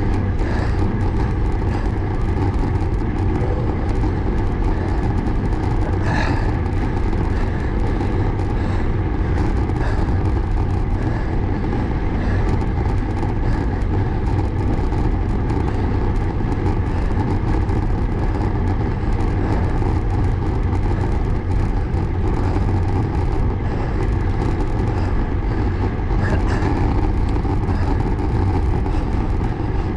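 Steady wind rumble on an action camera's microphone, with tyre noise on the tarmac, as a Canyon Aeroad road bike climbs at a steady pace; a brief click about six seconds in.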